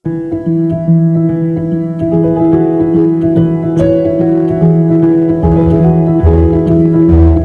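Instrumental background music, keyboard-led, that starts abruptly.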